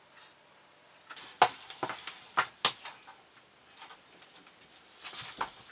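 Sharp clicks and knocks with short rattles as a steel tape measure is handled against a wooden frame on a hard floor, in two bursts: one cluster about a second in and another near the end.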